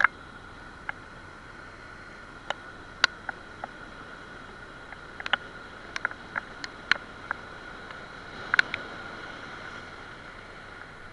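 Steady hiss of surf breaking on rocks, with a dozen or more sharp, irregular clicks and knocks from the fishing rod and spinning reel being handled during a cast and retrieve.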